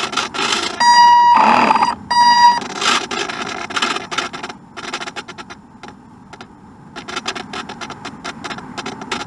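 Electronic beeping, a steady high tone sounding twice in the first few seconds, then irregular crackling and clicking noise for the rest of the time.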